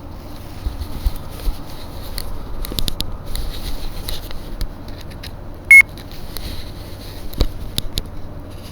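A single short, loud electronic beep a little past halfway through, over scattered clicks and rustling from a handheld microphone.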